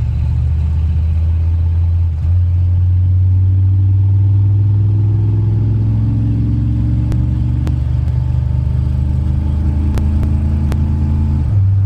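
Carbureted engine idling steadily in gear with a low even drone. From about two seconds in, a higher hum slowly rises in pitch and stops shortly before the end, with a few light ticks along the way.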